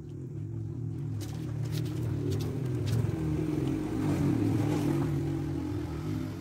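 Water poured from a basin splashing over an upturned plastic pot mould and running off onto the ground, over a steady low hum.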